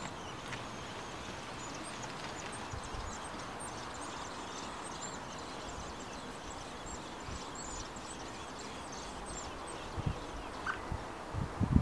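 Common blackbird nestlings begging for food: rapid, thin, high-pitched cheeping, many calls a second. A few low thumps come near the end.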